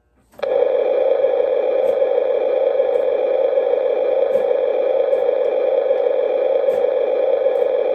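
Model diesel locomotive's onboard sound system (MTH Proto-Sounds 1) playing a diesel engine running sound through its small speaker. It starts suddenly about half a second in, as track power comes on, then runs steadily and loudly, with a few faint clicks.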